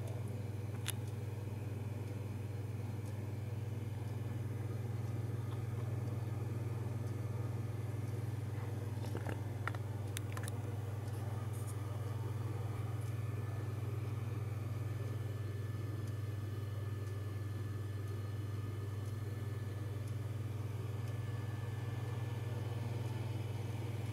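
Steady low hum of an HP MicroServer N54L and network switch running, with a few faint clicks near the start and about ten seconds in.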